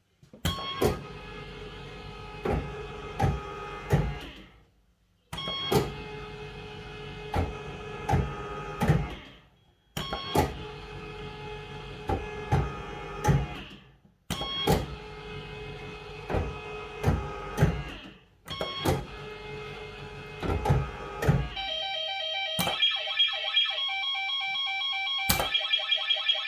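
A Bellfruit Firecracker fruit machine spinning its reels five times in a row. Each spin is a whirring run broken by sharp clunks as the reels stop one after another. From about 22 seconds in comes a repeating electronic beeping tune.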